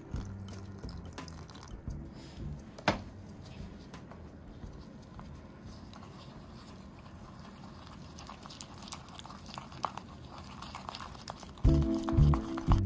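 Quiet room with faint small clicks and crackly scraping, one sharper click about three seconds in. Loud music comes in near the end.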